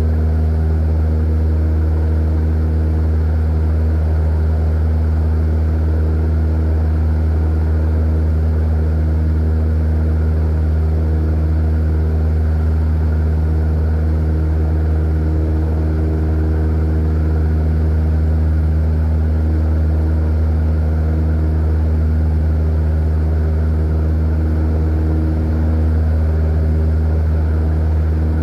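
Cessna 172's piston engine and propeller running steadily in flight, heard from inside the cabin as a loud, even, low drone that holds one pitch throughout.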